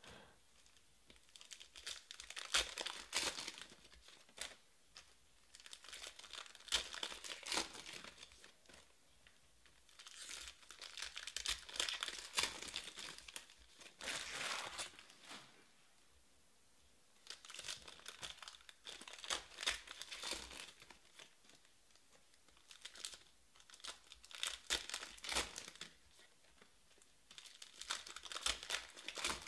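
Foil wrappers of 2020 Panini Prizm Baseball card packs being torn open and crinkled by hand, in repeated bouts a few seconds apart.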